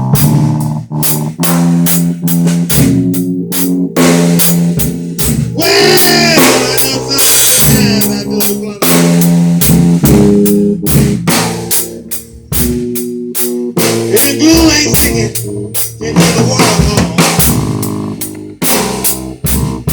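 A music track with a drum kit keeping a steady beat and guitar.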